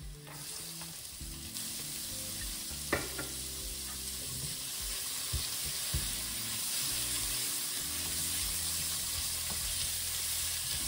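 Diced carrots frying in hot oil with shallots and garlic in a stainless steel pot, a steady sizzle that grows louder after the first second or so. A silicone spatula stirs them, knocking against the pot a few times.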